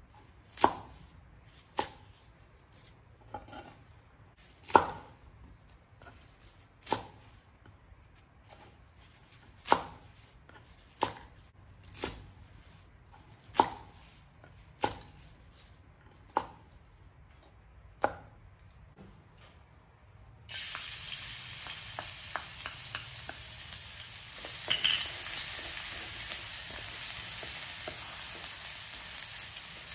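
A large kitchen knife chopping through green vegetable stems on a wooden cutting board, about a dozen single chops at uneven intervals. About twenty seconds in, this gives way to the steady sizzle of chopped aromatics frying in hot oil in a pan, stirred with a wooden spatula.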